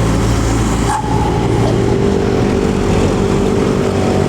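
Diesel tour bus engine running under load as the bus pulls up a steep hill and round a bend, a steady low drone with an abrupt change about a second in.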